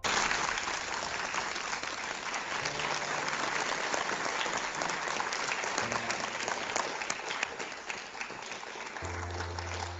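Audience applauding, a dense crackle of many hands clapping that starts abruptly and begins to fade near the end.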